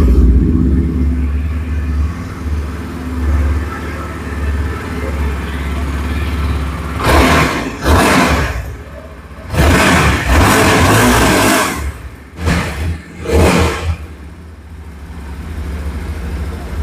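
Yezdi motorcycle's 334 cc single-cylinder engine idling just after starting, then revved with several throttle blips in the second half, one held for about two seconds, before settling back to idle.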